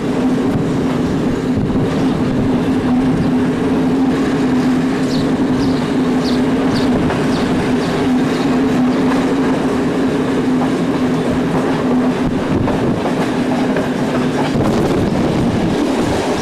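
Passenger train running along the line, heard from aboard at a carriage window: a steady low drone over the rumble of wheels on the rails.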